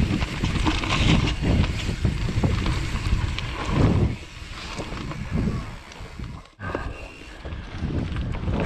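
YT Industries Capra enduro mountain bike riding fast down a dirt forest trail. Wind buffets the camera microphone, and tyres rumble over the dirt while the bike rattles and knocks over bumps. The sound briefly drops out about six and a half seconds in.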